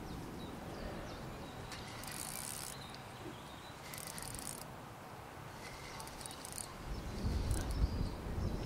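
Fixed-spool fishing reel being wound in short spells of about half a second, each a high, hissing whirr. Wind buffets the microphone near the end.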